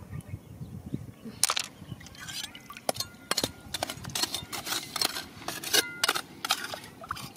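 A bladed hand tool knocking and scraping against rocks: a quick, irregular run of sharp clicks and clinks, some with a brief ring. It starts about a second and a half in.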